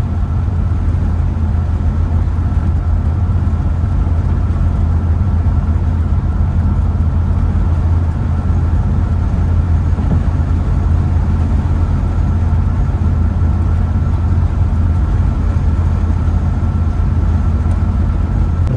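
Steady engine and road drone inside a camper's cabin while cruising on the road, with a faint steady whine above it.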